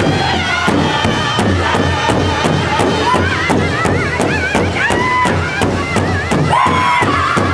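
Powwow drum group beating a large shared drum in a steady beat, about three strokes a second, while men sing high, wavering lines in unison over it.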